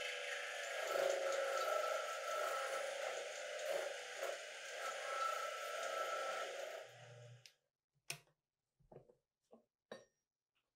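Benchtop milling machine running, its end mill cutting steel with a steady whine, until the motor is switched off about seven seconds in. A few separate knocks of metal follow as the part is handled in the vise.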